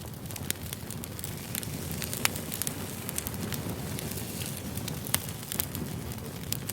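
Firewood burning: a steady low rumble of flames with frequent sharp crackles and pops. The loudest pops come a little over two seconds in and about five seconds in.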